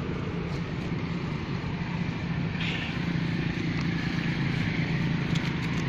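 Steady low hum of an engine running, with a brief high squeak about two and a half seconds in.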